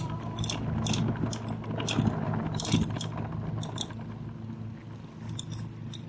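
A 2018 Rad Power Bikes RadMini fat-tire e-bike rattling and clicking as it rides over bumpy grass, over a steady low hum. A thin high whine comes in about four and a half seconds in.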